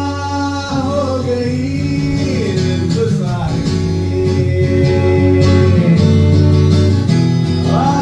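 Acoustic guitar strummed live with a man singing a slow melody over it.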